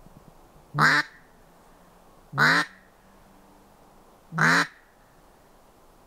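Three loud single quacks from a hand-blown duck call, each short and about two seconds apart, used to call ducks in toward the hunters.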